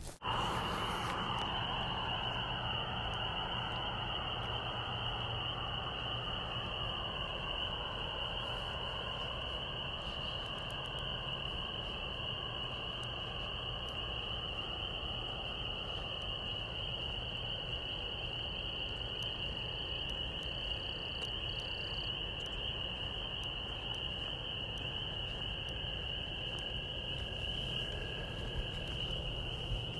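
A steady, high-pitched chorus of calling animals that runs unbroken, with a low hum beneath it.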